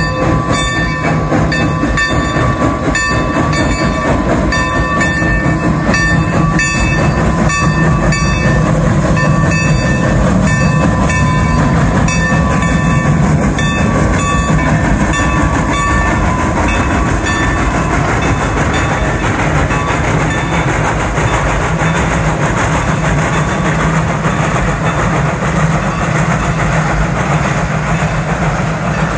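Shay geared steam locomotive pulling out under load, its exhaust chuffing in quick beats with hissing steam. The beats fade about halfway through, leaving the steady rumble of the passenger coaches rolling past on the rails.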